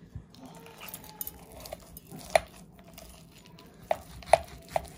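Knife and fork cutting through a breaded chicken breast on a ceramic plate, the cutlery clinking sharply against the plate a few times in the second half.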